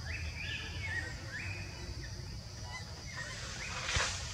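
Baby monkey giving a series of short, high calls that rise and then hold level. A steady high drone runs underneath, and there is a sharp knock with a brief rustle about four seconds in.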